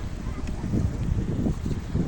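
Wind gusting against the microphone in uneven low rumbles, over the steady wash of ocean surf.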